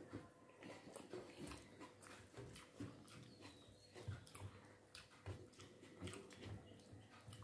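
Faint eating sounds: fingers squishing and mixing cooked rice and curry against a ceramic plate, with soft chewing, heard as scattered irregular clicks and taps.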